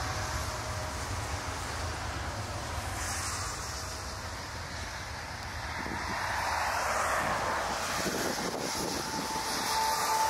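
Boeing 757 jet airliner rolling along a wet runway, its jet engines giving a steady rushing noise with wind buffeting the microphone. The engine noise grows louder in the second half, and a steady whine comes in near the end.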